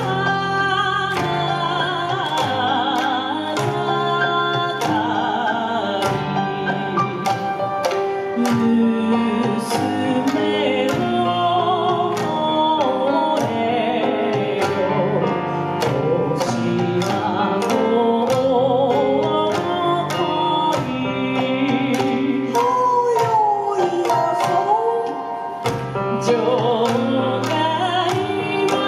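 A woman singing a Japanese song with vibrato into a microphone, amplified through a PA, over instrumental accompaniment with a steady percussive beat.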